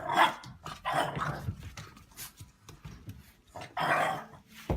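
A dog barking and growling in a few short bursts.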